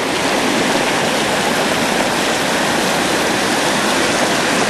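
Creek water rushing through a concrete box culvert and spilling over the ridges of a block-ramp fishway: a loud, steady rush of water.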